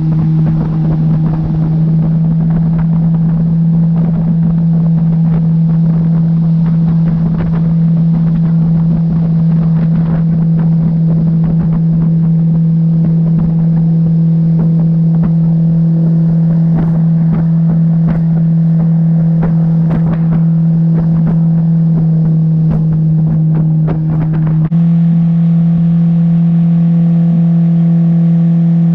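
Boat motor running at a steady speed with wind noise on the microphone and scattered knocks. About 25 seconds in it changes abruptly to a similar steady engine drone with more overtones.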